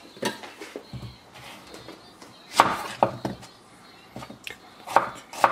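Chef's knife cutting red onions on a wooden cutting board: irregular sharp knocks of the blade against the board, the loudest about two and a half seconds in.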